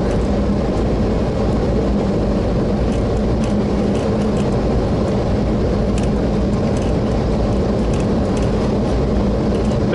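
Steady, loud rushing noise of airflow and engines heard inside an airliner's flight deck on short final, with a faint low hum and scattered faint clicks.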